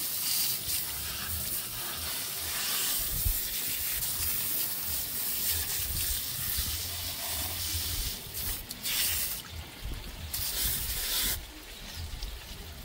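Garden hose trigger nozzle spraying water onto a wet puppy's coat, a steady hiss of spray with splashing. The spray stops for about a second a little after halfway, comes back briefly, then stops again near the end.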